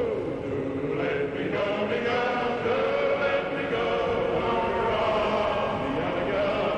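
Old early-1900s ballroom music record slowed down and heavily reverbed, heard as drawn-out, choir-like voices holding long notes that slowly bend in pitch.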